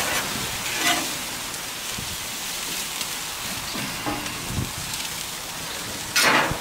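Burger patties sizzling on a hot grill grate, a steady hiss, with short scrapes and clinks of a big metal spatula as the patties are slid and lifted off the flame. A louder rasp comes just after six seconds in.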